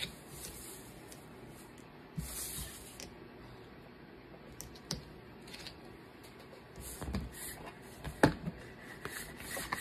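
Craft knife blade scratching and picking at cut vinyl letters on a cutting mat, in short scratchy bursts, with a few soft knocks and one sharper knock near the end.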